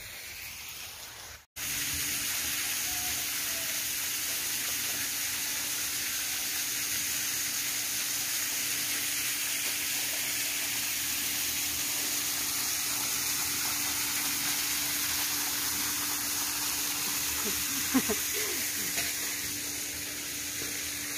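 Steady hiss of running, splashing swimming-pool water, with a faint steady hum under it. A brief short sound breaks in about 18 seconds in.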